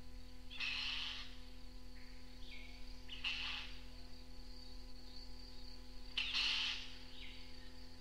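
Spotted catbird, the northern race of the green catbird, calling: three harsh calls about half a second each, roughly three seconds apart, with fainter short calls between. Under them run a steady high insect drone and the low hum of an old cassette recording.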